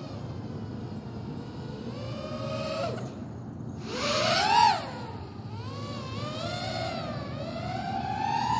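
FPV drone's motors and propellers whining, the pitch rising and falling irregularly with the throttle. It gets loudest about halfway through as it comes close, then climbs steadily in pitch toward the end.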